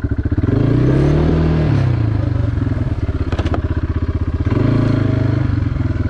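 Four-wheeler (ATV) engine running under throttle while riding, revving up and easing back down twice, with a brief rattle about halfway through.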